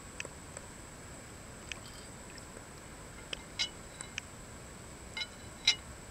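Ceramic pet drinking fountain running: water trickling steadily from its spouts into the stacked bowls, with a handful of short, high clicks, the loudest near the end.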